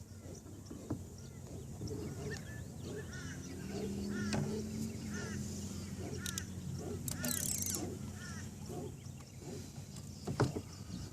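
A bird calling over and over, a short rising-and-falling note repeated about once a second through the middle stretch, with a brief hiss a little past the middle.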